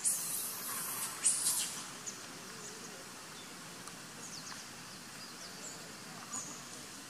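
Leaves and branches rustling in two short noisy bursts in the first two seconds as a macaque climbs through the tree, then a few faint, short, high chirps of small birds over steady forest background.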